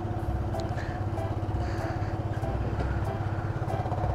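Small motor scooter engine idling steadily with an even, rapid pulse.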